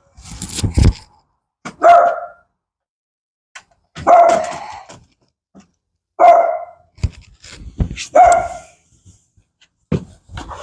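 Small Dachshund barking, four sharp single barks about two seconds apart. There is a rumbling thud at the start and a few light knocks between the barks.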